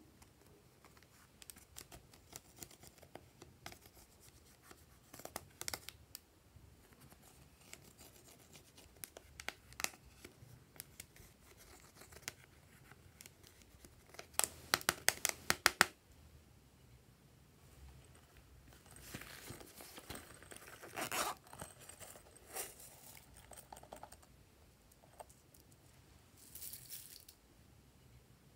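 Plastic spatula scraping pressed eyeshadow out of a makeup palette pan, with scattered small clicks and scratchy crumbling as the powder breaks up. About halfway through comes a quick run of sharp taps, the loudest part, and later stretches of dry scratching.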